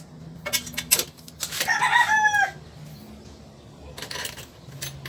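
A rooster crowing once, starting about one and a half seconds in and lasting about a second, its pitch dropping at the end. Sharp clicks and knocks from hand work on the exhaust are heard before and after it.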